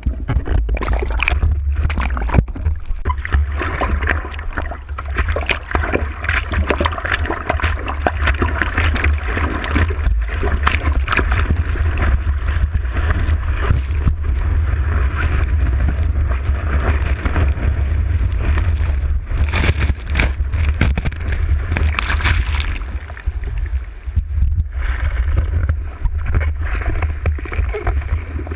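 Seawater rushing and splashing close to the microphone over a steady low rumble, dipping briefly about two-thirds of the way through.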